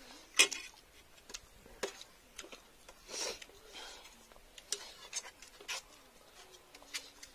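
Metal forks and spoons clicking and scraping against a steel plate of noodles in scattered light taps, the loudest about half a second in, with a brief soft rustle about three seconds in.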